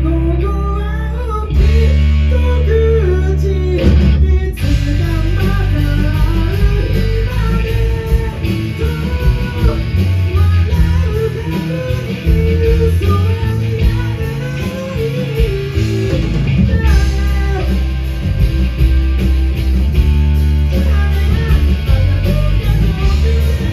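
Live rock band playing: electric guitar, bass guitar and drums behind a male lead vocal. There is a short break about four seconds in before the full band comes back in.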